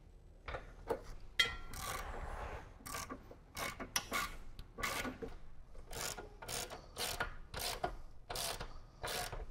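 Hand socket ratchet being worked in short strokes, its pawl rasping and clicking about twice a second, as the front gas-tank mounting bolts are tightened down.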